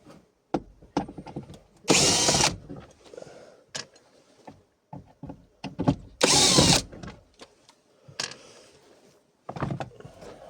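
Cordless screwdriver with a long bit run in two short bursts, about two seconds in and again about six seconds in, backing out screws. Light clicks and knocks of handling come between the bursts.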